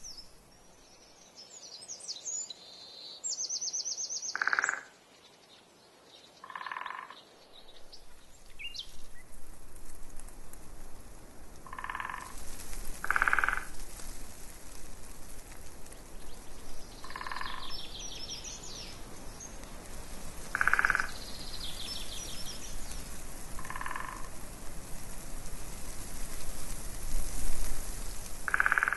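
Frogs croaking, single short calls every two to four seconds, about eight in all, with small birds singing high trills between them. A steady rushing noise rises about eight seconds in.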